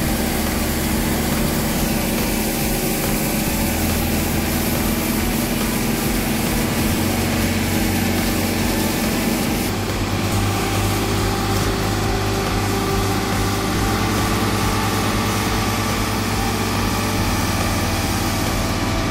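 New Holland 8070 combine harvester running steadily, its diesel engine and machinery working while the unloading auger pours out harvested rice. The tone shifts slightly about ten seconds in.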